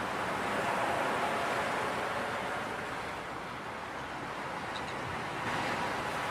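Ocean surf: a steady wash of waves that swells and ebbs gently, as a sound effect opening a song.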